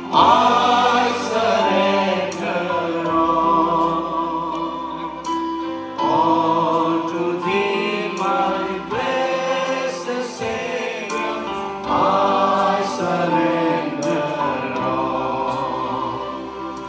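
A choir singing a hymn in sung phrases a few seconds long, each starting afresh with a loud entry.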